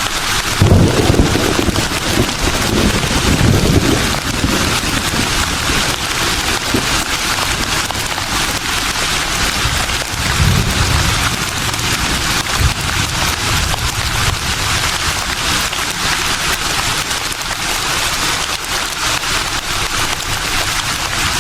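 Wind blowing through leafy trees, a steady rustling hiss, with deeper gusts swelling about a second in and again around ten seconds in.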